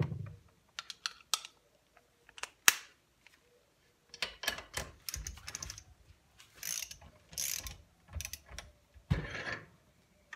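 A hand ratchet on a long-handled torque wrench being worked back and forth on a 17 mm bolt, giving six short runs of rapid pawl clicks from about four seconds in, one run per swing. Before that come a few separate metal clicks as the socket and extension are fitted.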